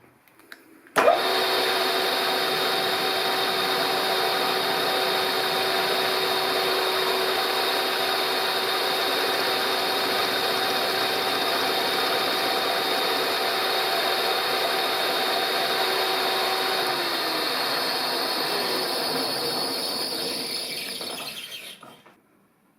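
Milling machine starting up about a second in and running steadily with a slitting-saw type cutter to take a further light cut on a welded brake caliper lug, a steady whine over the machining noise. Near the end the whine drops in pitch and the sound fades away as the machine runs down.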